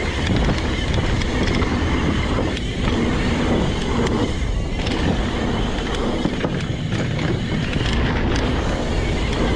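Mountain bike riding fast down a dirt trail: a steady rush of wind over the microphone and tyre rumble, with short clatters of the bike rattling over rough ground.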